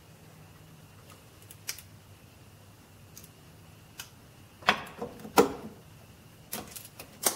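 Sharp metal clicks and clinks of needle-nose pliers working a drum-brake shoe spring into its hole on the backing plate: a few scattered clicks, then a quicker cluster in the second half, the loudest about five and a half seconds in.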